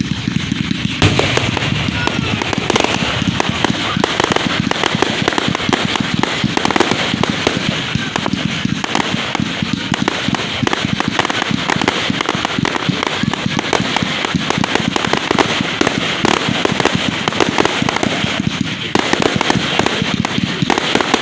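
Fireworks going off at close range: a dense, continuous barrage of bangs and crackling that starts about a second in, with a brief lull near the end.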